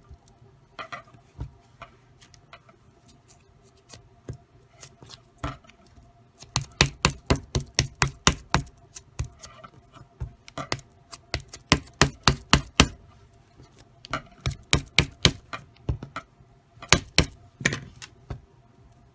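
Quick runs of sharp taps and knocks, about five a second, as hands pat and press a block of Play-Doh into a square package on a tabletop.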